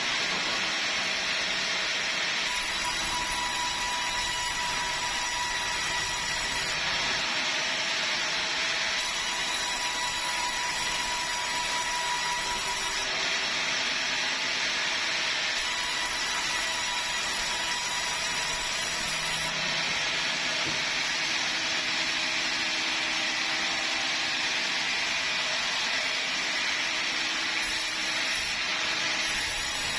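Sawmill saw cutting through bengkirai hardwood: a steady, continuous sawing noise with a thin whine that comes and goes.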